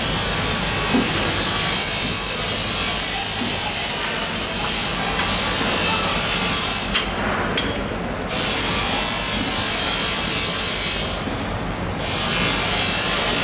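A saw cutting through the tail joint of a giant bluefin tuna: steady rasping, with two brief pauses in the second half.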